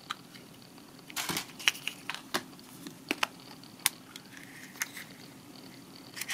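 A surprise egg being opened by hand. A short rustle of crinkling wrapping comes about a second in, and several sharp cracks and clicks follow, spaced about a second apart.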